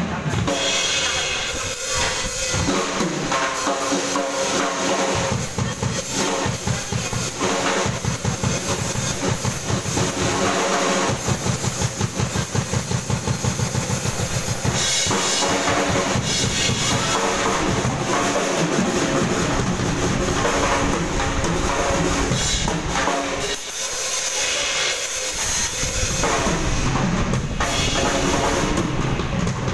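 Acoustic drum kit played hard and fast in a solo, with snare, toms and bass drum under steady cymbal wash. A little before halfway comes a run of rapid, even strokes.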